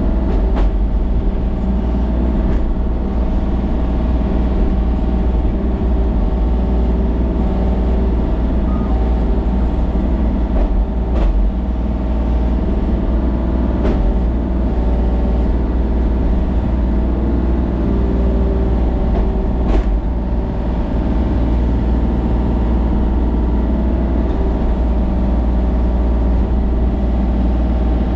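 A vehicle engine running steadily at a constant pitch, with strong low rumble and a few faint knocks.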